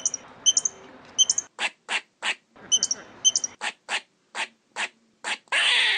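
Squirrel barking: short, sharp alarm calls repeated about three times a second, some with a thin squeak, and a rougher, longer call near the end.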